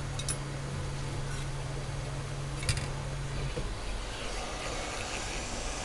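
Light clicks of metal tweezers and hand tools being set down on a silicone work mat, twice, over a steady hiss with a low hum that stops about three and a half seconds in.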